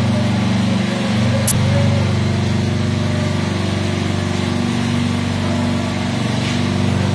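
A motor running steadily with a low, even hum and a fine rapid pulse, with a single sharp click about a second and a half in.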